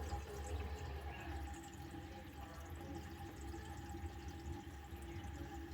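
Water running faintly and steadily in a bathroom sink as the half-filled basin drains, a leak test of the newly installed faucet and drain connections.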